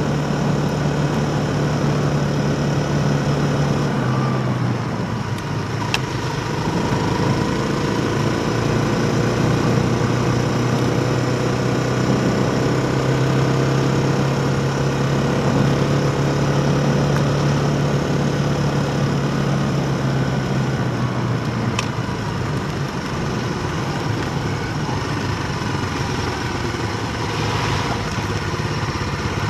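On-board ride noise on a gravel track: a steady mechanical drone holding one pitch, which steps down twice, over wind and rolling noise, with a couple of faint clicks.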